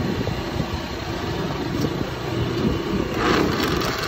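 Steady rumble of roadside traffic and street bustle. About three seconds in there is a short clatter, as a steel strainer bowl is set on top of the blender jug.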